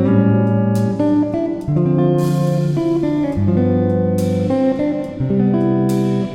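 Background music: plucked guitar playing a melody, with notes changing about once a second.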